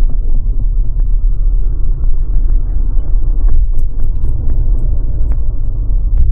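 Car driving, a steady low rumble of engine and road noise, with a few faint clicks.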